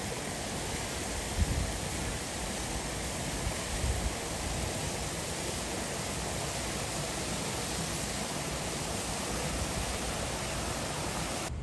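Steady rushing of water in a sea lion pool, with uneven low rumbles of wind on the microphone.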